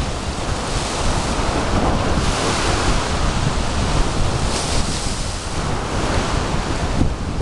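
Surf breaking on the shore, the hiss swelling up twice, under strong wind buffeting the microphone with a low rumble.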